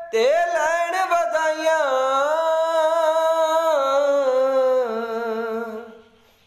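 A man singing a Punjabi song unaccompanied, drawing out one long wordless note that bends up and down in pitch and fades out near the end.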